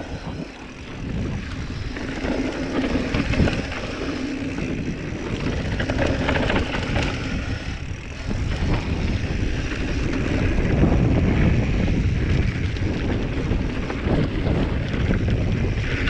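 Wind rushing over an action-camera microphone, with the rumble and rattle of a Giant Trance full-suspension mountain bike rolling fast down a dirt trail. It dips briefly just after the start and grows louder about halfway through.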